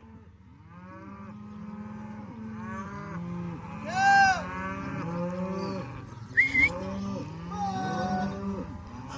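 A herd of beef cows and calves mooing and bawling over one another, with many calls overlapping and one loud high-pitched bawl about four seconds in. A short, sharp high squeal cuts through about six and a half seconds in.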